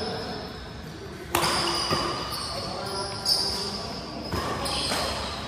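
Badminton doubles rally: sharp racket strikes on the shuttlecock, one every second or two, and squeaking shoes on the court floor, in a reverberant hall.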